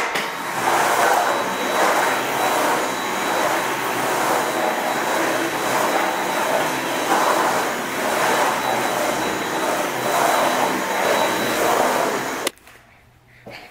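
Cordless stick vacuum running over a hard floor: a steady whir with a thin high whine, swelling and easing with each push and pull, switched off suddenly near the end.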